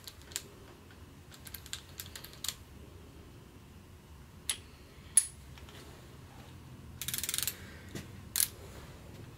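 Torque wrench being handled and fitted to a cylinder head bolt: scattered light metal clicks and taps, then a quick run of ratchet clicks about seven seconds in, and a single sharp click shortly after.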